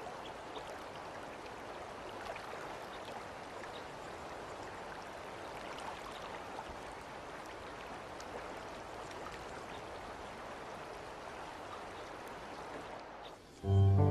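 Small mountain creek, the upper Lena, rushing steadily over rocks. Near the end the water sound gives way abruptly to louder music with sustained notes.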